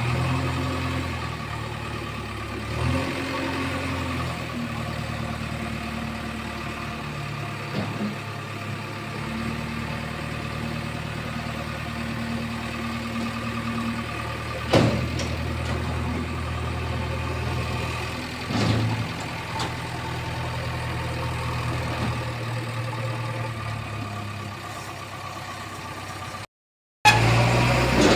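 JCB 3DX backhoe loader's diesel engine running steadily, its pitch stepping up and down as it works, with a few sharp knocks, the loudest about halfway through. The sound cuts out for a moment near the end and comes back louder.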